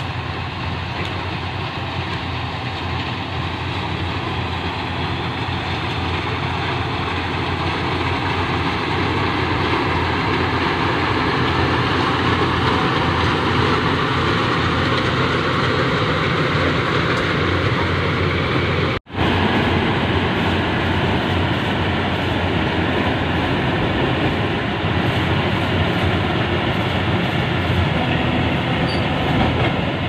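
Rice combine harvester running as it harvests, its engine and threshing machinery making a steady, dense mechanical din. It grows louder over the first dozen seconds as the machine comes closer. The sound cuts out for an instant about two-thirds of the way through.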